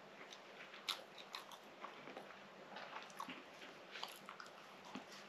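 Close-up chewing and biting of soft baked fatayer bread: faint, wet mouth clicks and smacks, with the sharpest click about a second in.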